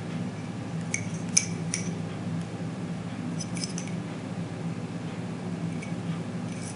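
Light metallic clicks and taps as a pair of Hogue checkered aluminum pistol grip panels are handled and turned over. A few sharp clicks come about a second in and a small cluster around three and a half seconds, over a steady low hum.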